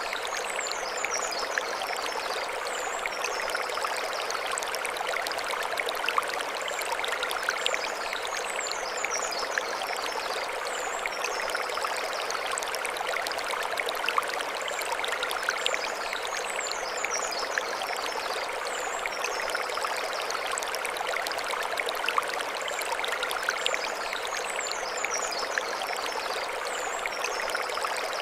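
Mountain stream flowing over stones, a steady rushing babble, with short high chirps that come back every few seconds.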